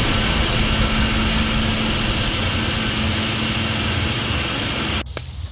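Riding lawn mower engine running steadily with a constant hum. The sound cuts off abruptly about five seconds in.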